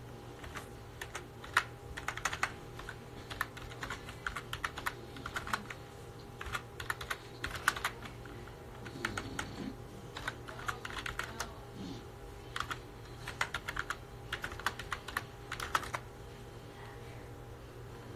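Fingers typing on a phone's touchscreen close to its microphone: quick runs of light taps with short pauses, stopping about two seconds before the end, over a steady low hum.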